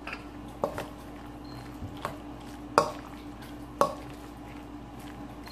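A metal fork clinking and scraping against a stainless steel mixing bowl while stirring a wet ground-chicken and eggplant mixture: about six sharp clinks, the loudest near the middle.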